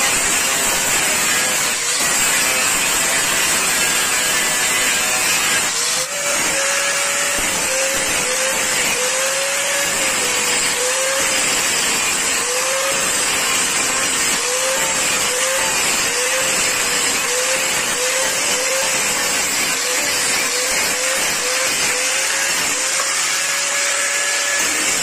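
Electric angle grinder with a disc grinding and shaping wood, running steadily, its motor pitch dipping and recovering again and again as the disc is pressed into the wood, with a brief break about six seconds in.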